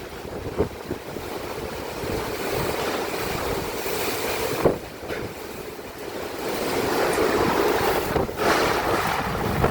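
Storm wind gusting hard with heavy rain and hail, the wind buffeting the microphone; the gusts strengthen in the second half. One sharp knock about four and a half seconds in.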